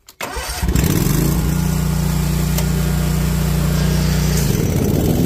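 Toro Proline 60-inch commercial mower's engine running steadily with its leaf blower attachment while mowing. The engine comes in loud about a second in, and its note shifts near the end.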